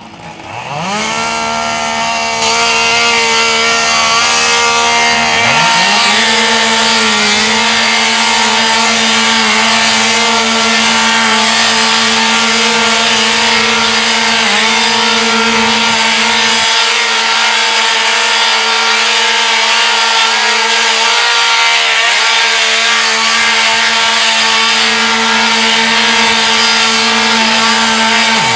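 Two chainsaws revving up to full throttle about a second in, then running flat out while cutting branches off logs. The engine note drops briefly now and then as a saw comes off the throttle between cuts.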